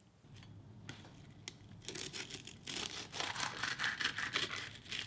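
Serrated knife sawing back and forth through a crisp, sugar-coated fried glutinous-rice doughnut on a wooden cutting board: a quick scratchy crunching rasp that starts about two seconds in.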